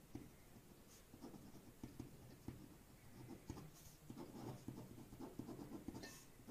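Pen writing by hand on a sheet of paper: faint, irregular scratching of the pen strokes as words are written out.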